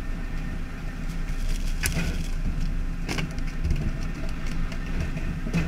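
Fishing boat's engine running with a steady low drone, broken by three sharp knocks about two, three and five and a half seconds in.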